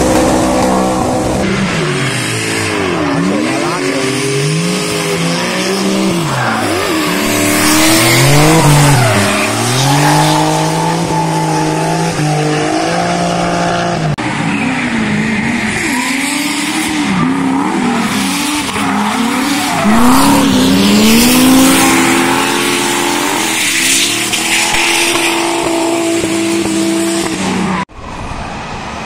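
Drift cars' engines revving hard, their pitch swinging up and down every second or two, with tyres squealing and skidding as the cars slide sideways through a corner. The sound drops off suddenly near the end.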